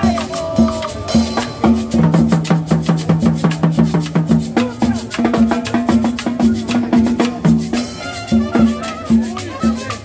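Live cumbia band playing: drums and percussion keep a fast, even beat over a repeating bass line.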